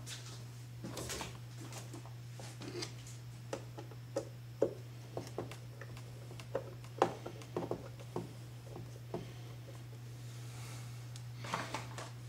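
Scattered sharp clicks and knocks of a screwdriver and metal parts as the wiper linkage arm is snapped back onto the new windshield wiper motor of a 1995 Jeep Wrangler YJ, over a steady low hum.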